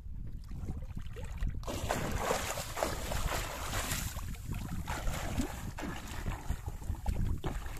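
Water splashing as a swimmer kicks and strokes through shallow sea water. The splashing starts about one and a half seconds in and dies down near the end, over a steady low rumble.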